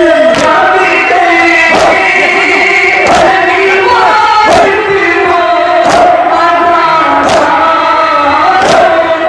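A group of men chanting a nauha together while beating their chests with their hands (matam). The slaps land together in a steady beat, about one every second and a half, seven in all.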